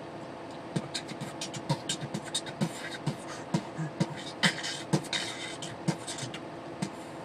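A man beatboxing: an irregular run of mouth pops, clicks and low thumps lasting about six seconds, over the steady hum of a truck cab.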